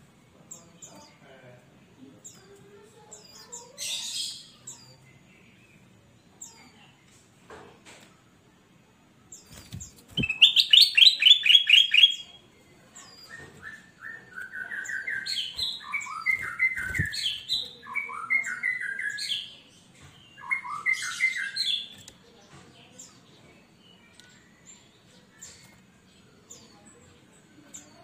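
Caged ruby-throated bulbul (kutilang emas) singing in full voice. Scattered short chirps give way, about ten seconds in, to two seconds of fast repeated notes, then to several seconds of rising and falling warbled phrases. A couple of faint knocks are heard as it hops on its perch.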